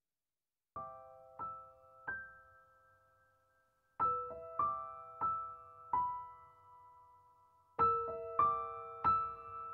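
Soft background piano music: a slow melody of single struck notes that ring out and fade. It starts about a second in, with three notes, pauses, then picks up again.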